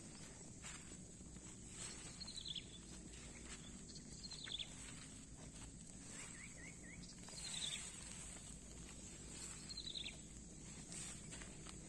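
Pasture ambience: a steady high insect drone, a bird repeating a short falling call every two to three seconds with a quick run of notes midway, and faint crunching of cattle grazing and stepping in the grass.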